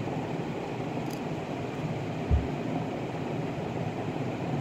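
Steady background hum and hiss, like a room fan, with one brief dull low thump about two seconds in.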